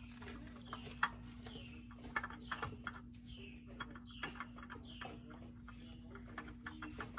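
Steady insect drone with a bird calling over and over. Through it come light clicks and scrapes of a new oil filter being spun on by hand, with a sharp click about a second in.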